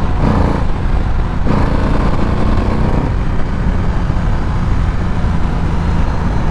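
Motorcycle engine running steadily while riding, under a heavy, even rush of road and wind noise.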